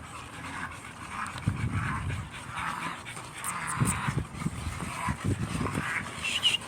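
A dog panting hard, a run of quick, noisy breaths.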